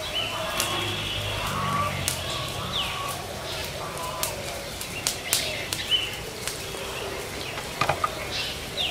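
Open wood fire crackling with scattered sharp pops, over birds calling in short whistles and quick downward-sliding notes.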